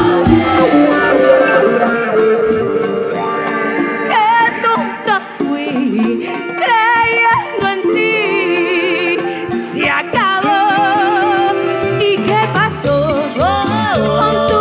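Live band music: a wavering, vibrato-laden lead melody over light shaker-like percussion, with the bass coming in about twelve seconds in.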